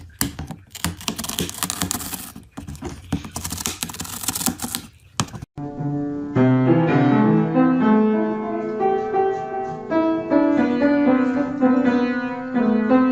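A cat gnawing the edge of a cardboard box: dense, rapid crackling and scratching of cardboard. About five and a half seconds in it stops, and piano music begins, a melody over chords.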